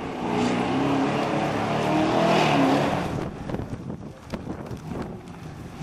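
An off-road buggy's engine revving hard as the buggy races over rough ground, its pitch rising and falling with the throttle. It is loudest about two to three seconds in, then fades as the buggy moves away.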